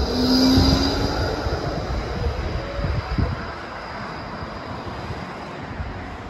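E-class low-floor tram passing close by, its wheels rumbling on the rails with a brief whine near the start. It is loudest in the first second, then fades steadily as it moves away.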